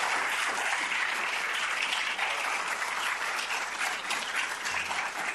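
Audience applauding, a dense clapping of many hands that thins a little toward the end, with single claps standing out.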